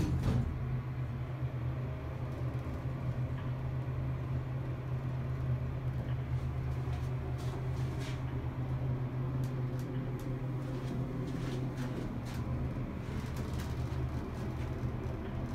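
Westinghouse traction elevator car travelling upward, heard from inside the cab as a steady low hum. A single sharp thump comes at the very start.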